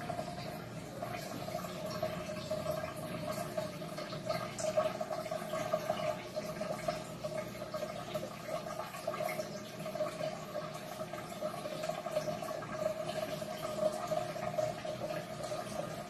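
Aquarium water bubbling and trickling steadily, with a constant hum.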